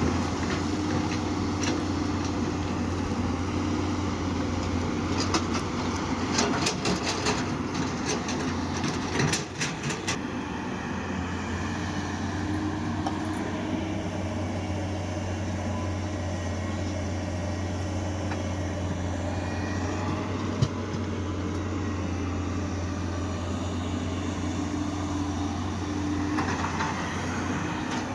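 Excavator's diesel engine running steadily. A run of sharp clattering knocks comes between about five and ten seconds in.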